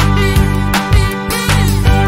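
Background music with a steady beat: an upbeat instrumental track with guitar-like and brass-like sustained notes.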